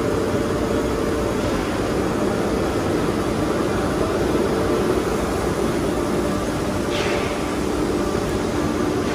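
Steady din of factory machinery, a dense mechanical noise with a few held hum tones, and a brief hiss about seven seconds in.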